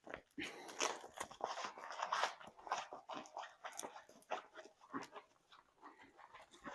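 Irregular crackling and crunching, a quick run of small sharp crackles with short pauses.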